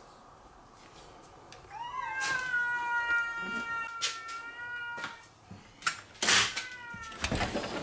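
A domestic cat meowing. One long drawn-out meow starts about two seconds in and is held for about three seconds. Near the end comes a brief harsh noise, the loudest sound here, followed by a shorter meow that falls in pitch.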